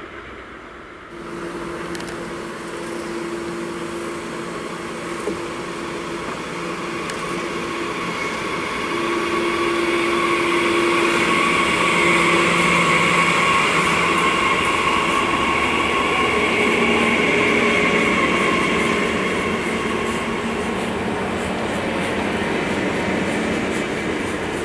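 A train running past on the rails. A steady low hum comes in abruptly about a second in, then gives way to louder rolling rail noise that peaks mid-way and fades slightly toward the end.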